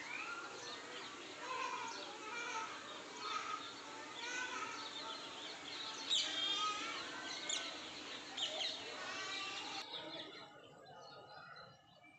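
Several birds chirping and calling in quick, repeated short notes over a steady background hiss. About ten seconds in, the sound drops suddenly to a quieter background.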